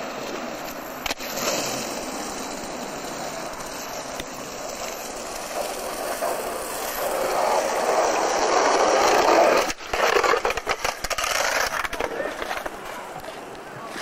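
Skateboard wheels rolling over rough asphalt, getting louder as the board comes closer and peaking about nine seconds in. The rolling cuts off suddenly near the ten-second mark, and a quick run of clattering knocks follows.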